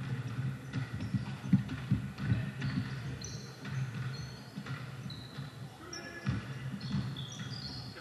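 A basketball being dribbled on an indoor court, with irregular bounces, several short high sneaker squeaks and players' voices calling out.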